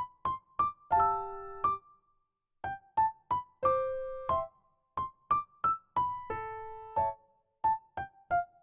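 Background music: a light keyboard tune of short, separate notes and a few chords, with a brief pause about two seconds in.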